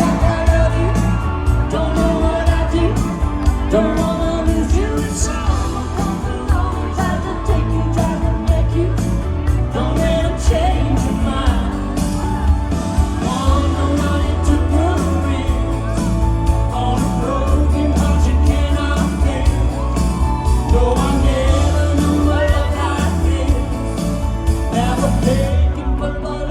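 Live pop-country band playing with a sung melody over heavy bass and a steady drum beat.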